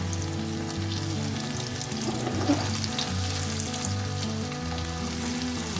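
Sliced onions frying in hot oil in an iron wok, with a steady sizzle and crackle.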